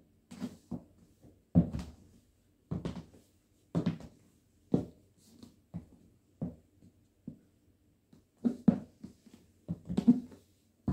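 Stiletto heels of red patent leather pumps, which the title suggests are Steve Madden, clicking and tapping on a hard wood-grain floor as the wearer steps and shifts her feet. The clicks come irregularly, about one or two a second and sometimes in quick pairs, with a cluster of them near the end.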